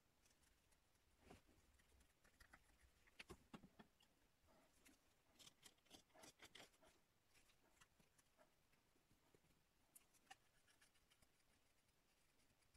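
Faint, short scraping cuts of a shallow-curve hook knife shaving the inside of a dried birch spoon's bowl: a few scattered strokes, bunched around three to six seconds in and twice more near ten seconds.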